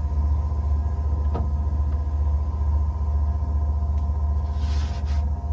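Lumberjack DP13-580B benchtop drill press motor running steadily under no load, a steady low hum with a faint whine above it; it is running quietly with barely any vibration. A short hiss near the end.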